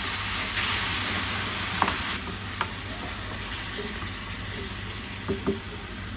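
Okra frying in oil with onion-tomato masala, sizzling steadily as it is stirred, with a few light clicks of the spoon against the pan. The sizzle is louder for the first two seconds or so.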